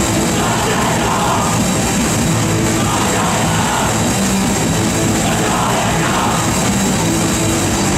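Live rock band playing loudly: distorted electric guitars and a drum kit pounding together, with shouted vocals over the top.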